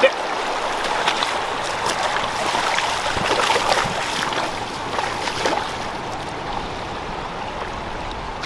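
Fast, shallow river running over stones, with irregular splashes from wading boots stepping through the water.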